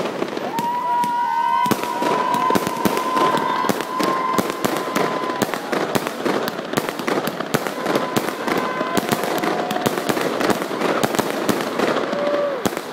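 Aerial fireworks bursting overhead: a dense run of rapid bangs and crackles throughout. A steady high whistle runs through the first five seconds or so, and shorter whistles rise and fall later on.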